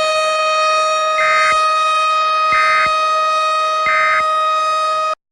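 Emergency Alert System audio: a steady, buzzy alarm tone runs under three short bursts of warbling data tones about 1.4 seconds apart, the end-of-message code that closes an EAS alert. Everything cuts off abruptly near the end.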